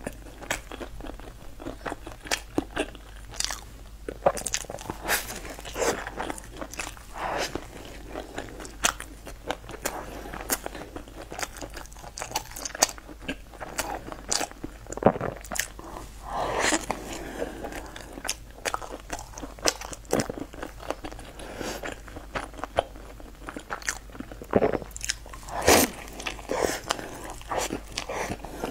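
Close-miked biting and chewing of a crusty baked bread roll: irregular crunches and clicks of the crust between the teeth, heard through a clip-on microphone.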